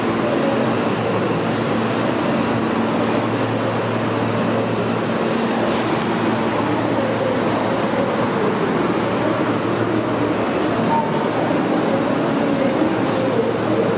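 R143 subway train creeping slowly along the station track, a steady rumble of wheels and electric propulsion with a low hum. A faint high whine joins in the second half.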